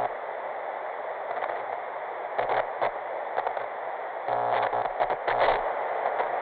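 Hissing, crackling static like an untuned analogue TV, dull with no high treble. It swells into louder crackly stretches about two and a half seconds in and again from about four to five and a half seconds.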